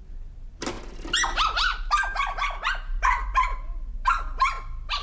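A dog yipping in a quick run of short, high calls, each bending in pitch, about three a second. A brief burst of noise comes just before the calls start.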